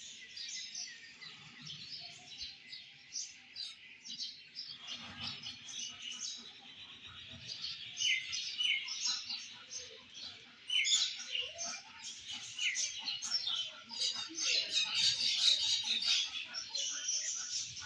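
A chorus of many small birds chirping and singing at once: dense, overlapping high calls that grow busier and louder in the last few seconds.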